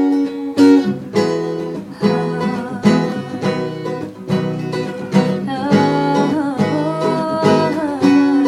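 Acoustic guitar strumming chords in a steady rhythm: an instrumental break between sung lines of a song.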